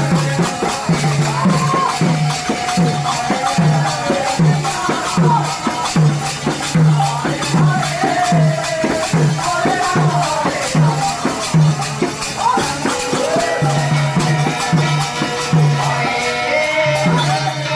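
Live kirtan devotional music: a low drum beat about once a second under steady jingling, clashing percussion, with a wavering melody line above.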